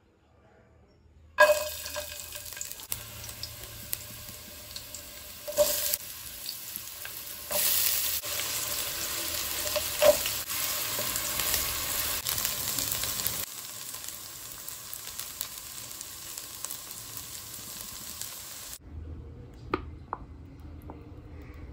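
Sliced onion, green capsicum and carrot dropped into hot oil in an aluminium pan, sizzling; the sizzle starts suddenly about a second and a half in and is loudest around the middle, as more vegetables go in. Near the end the sizzle dies down, with a few clicks of stirring.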